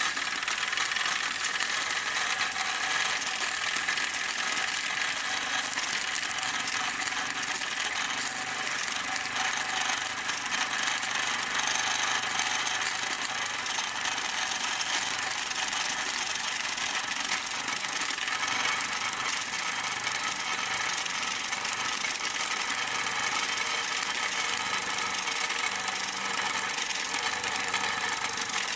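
Pre-war Mamod Minor 1 toy live steam engine running steadily under steam: a fast, even chuffing from its single oscillating cylinder over a constant hiss of steam.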